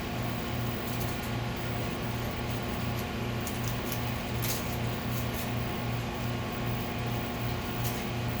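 Steady hum of running shop equipment, with a low drone that pulses about two and a half times a second and a few faint ticks.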